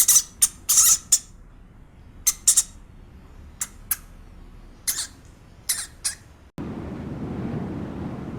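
Short, high-pitched squeaks from a small animal, coming in quick clusters of two or three. About six and a half seconds in they cut off abruptly and a steady rushing noise takes over.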